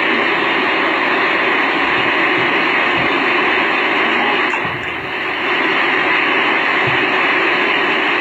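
Steady rushing noise of a storm flood, played back through a small speaker and re-recorded, dipping briefly about five seconds in.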